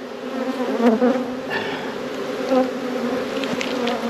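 Honeybees buzzing loudly all over the microphone around an open hive: a steady, wavering hum.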